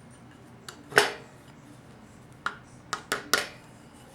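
Sharp metallic clinks of small steel parts and hand tools being handled while fitting the vanes of a 4L60E transmission pump: one loud ringing clink about a second in, then four quicker clinks near the end.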